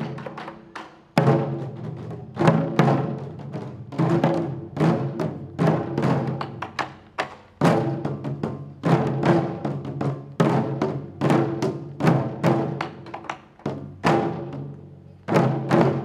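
Taiko drums struck with wooden sticks, playing a driving rhythm of quick strokes in phrases with short breaks between them; each stroke rings on with a deep, resonant tone.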